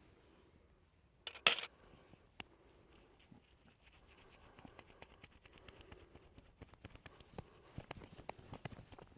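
Hands scratching and rubbing on hair and skin during a head and back massage. There is a brief loud rush about a second and a half in, then quick small clicks and scrapes that come thicker toward the end.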